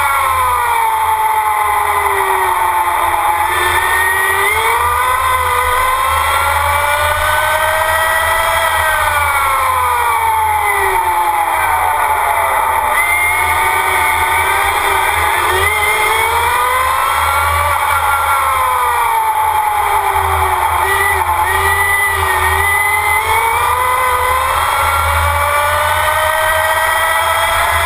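Formula Student race car's motor heard on board while lapping, its pitch climbing under acceleration and falling off into each corner, several times over, above a steady low rumble.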